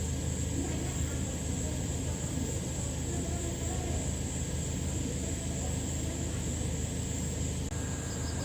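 Steady outdoor background noise: a low rumble under a continuous high-pitched insect drone, with a short run of cricket-like chirps near the end.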